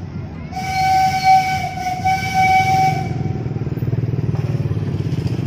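Steam locomotive whistle blowing one loud, single-pitched blast of about two and a half seconds with a brief dip near the middle, over the low rumble of the train's carriages rolling along the street track, which grows steadier after the whistle stops.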